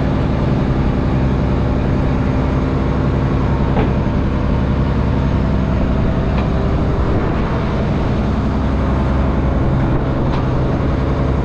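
A fishing trawler's inboard diesel engine running steadily under way, a constant low drone with the wash of water under it.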